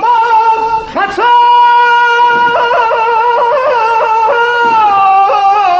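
A man singing a mourning elegy (mersiye) for Imam Hussain in Azerbaijani in a high voice: a rising glide about a second in leads into a long held note with quavering melismatic ornaments in the middle, and the melody steps down near the end.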